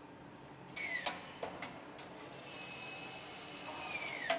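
Car-plant assembly-line ambience with a power tool whirring twice, its pitch falling each time before a sharp click. A few smaller clicks and a thin steady whine come in between.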